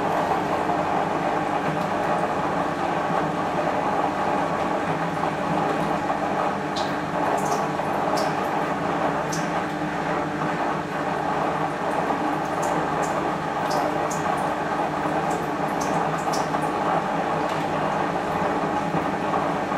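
Zanussi Super Jetsystem front-loading washing machine tumbling laundry during a rinse: a steady motor hum with water sloshing in the drum and occasional short high ticks.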